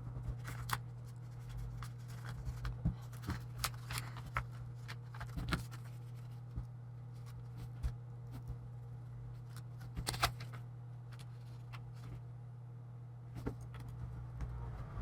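Scattered light clicks and rustles of hands handling small plastic laptop parts and paper, the loudest cluster about two-thirds of the way through, over a steady low hum.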